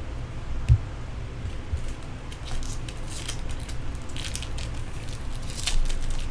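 Baseball trading cards and pack wrappers being handled, with a run of quick flicking and rustling sounds from about two and a half seconds in as cards are gone through. There is a short low thump about a second in, over a steady low hum.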